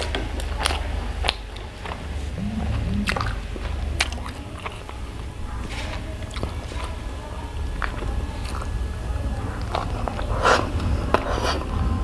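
Close-miked chewing and biting of food, with irregular wet mouth clicks and smacks over a steady low hum.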